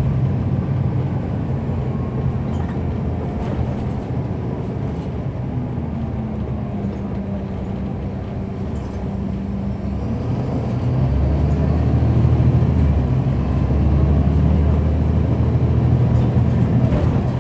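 Caterpillar C13 ACERT diesel engine of a NABI 40-foot transit bus, heard from on board as a steady engine drone. About two-thirds of the way through it grows louder and deeper as the engine works harder.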